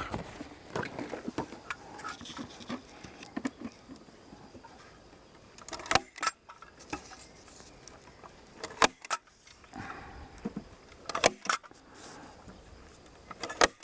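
Hand staple gun firing staples through paper targets into a wooden post: several sharp snaps a few seconds apart, some in quick pairs, with paper and handling rustle between them.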